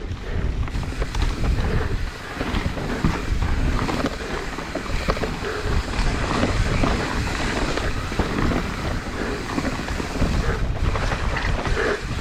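Wind buffeting the microphone and tyres rumbling over dirt and roots on an enduro mountain bike descent, with scattered knocks and rattles from the bike.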